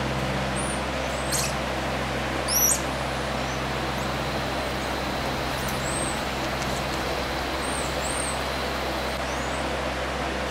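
Common squirrel monkeys giving short, high chirping calls every second or two, the loudest about two and a half seconds in, over a steady rushing background noise.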